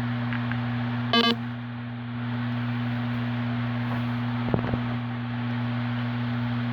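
A phone notification chime, a quick two-note tone about a second in, over a steady low electrical hum. A few light clicks follow a few seconds later.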